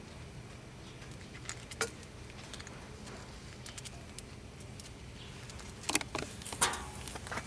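Scattered light clicks and taps as a Shiba Inu moves about on concrete, its claws and the metal clip of its leash knocking, with a cluster of louder clicks about six seconds in.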